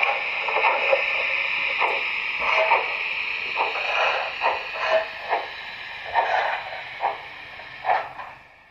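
Sound decoder of a Märklin 55077 gauge 1 BR 78 steam-locomotive model playing steam sounds through its small loudspeaker: a steady hiss with short exhaust chuffs on top. The chuffs come further apart and fade toward the end.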